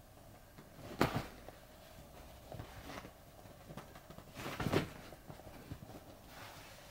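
A cat pouncing and moving about on a bedspread after a wand teaser toy: soft thumps and rustles of paws and toy on the fabric, sharpest about a second in and again in a short cluster around the middle.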